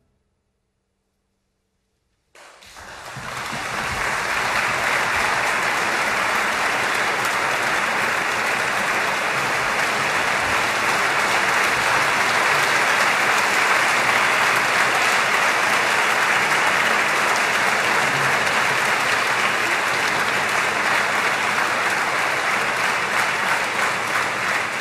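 Audience applauding in a concert hall, breaking in after about two seconds of silence and keeping up a dense, steady clapping.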